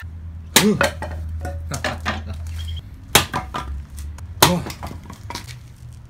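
A series of sharp knocks as a hatchet is struck into firewood to split it: three hard blows with lighter taps between.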